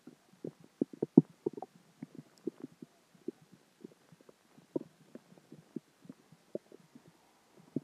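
Human stomach gurgling: an irregular string of short low pops and bubbling gurgles as gas and liquid from dinner and water move through the gut, busiest in the first couple of seconds and again about five seconds in.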